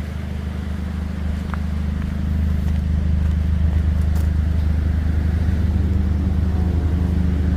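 Car driving, a steady low engine and road drone that grows louder about two seconds in.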